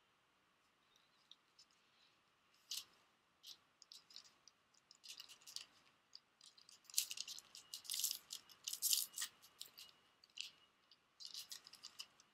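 Foil plastic wrapper of a Cardfight!! Vanguard booster pack crinkling and crackling as it is opened by hand, then the trading cards inside being handled. The crackles start after about a second and are densest in the middle.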